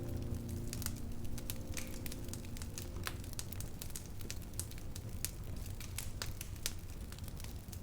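Crackling fire: sharp, irregular pops and snaps over a low steady rumble, as the last held notes of a song fade out in the first couple of seconds.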